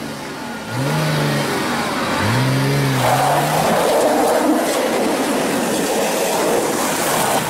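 A 4x4 SUV's engine revving hard in two rising-and-falling surges in the first three seconds, then held high over a steady hiss of its rear wheel spinning on wet tarmac. The engine is under load, pulling a stuck car on a tow strap.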